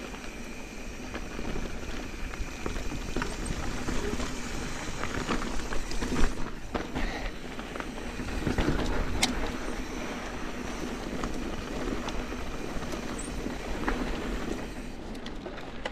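Mountain bike riding down a dirt trail: steady tyre and rolling noise with scattered clicks and rattles from the bike.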